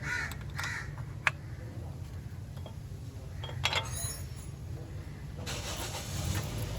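Car-workshop sounds: a steady low hum, a few sharp metallic clinks of tools, and a crow cawing at the very start. About five and a half seconds in, a rushing hiss sets in.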